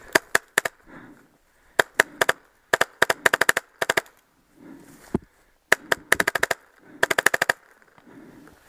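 Paintball marker firing in quick strings of shots, about eight to ten a second, with short pauses between the strings.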